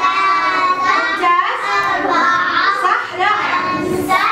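Young children's voices singing together without a break.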